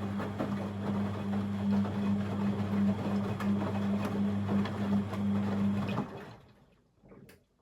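Beko WML 71433 NP washing machine running with a steady hum and water noise, which winds down and stops about six seconds in; a brief clunk follows near the end.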